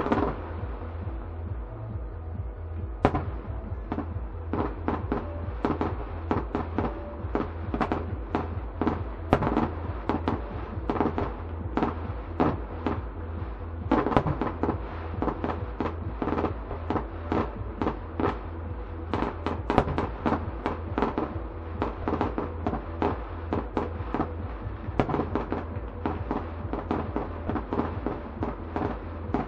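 Fireworks display: a continuous run of sharp bangs and crackling from aerial shells bursting, several a second, with clusters of louder reports about three seconds in and about fourteen seconds in.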